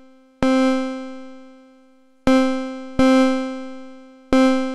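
Synthesizer notes from a VCV Rack virtual modular patch (oscillator shaped by an ADSR envelope generator through a VCA), one bright tone played four times at the same pitch. Each note starts instantly and fades out gradually after the key is let go: the envelope's release stage turned up.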